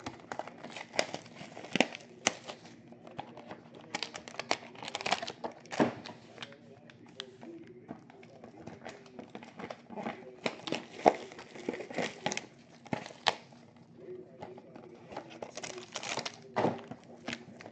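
Sports card box packaging being torn open and crinkled by hand, in irregular crackles and rustles.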